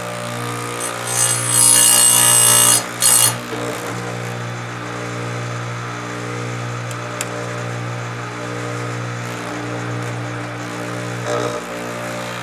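Electric chainsaw sharpener running with a steady motor hum; its abrasive wheel grinds a chain tooth with a loud, harsh rasp from about one to three seconds in, twice in quick succession.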